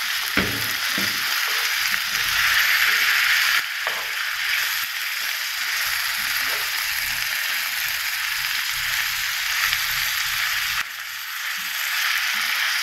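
Minced beef with onions and herbs sizzling in a frying pan while being stirred with a wooden spatula. The sizzle swells about two seconds in and drops briefly near the end.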